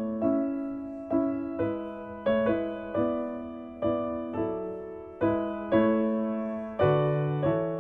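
Background music: a slow piano piece, notes and chords struck about every half second to a second, each fading away before the next.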